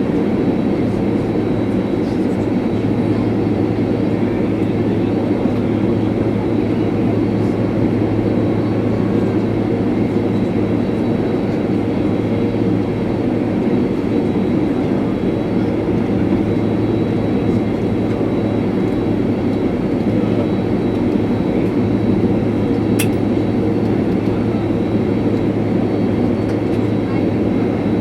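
Steady cabin noise inside a Boeing 767-300 taxiing after landing, with the engines' low hum running under a broad rush of air. One sharp click sounds late on.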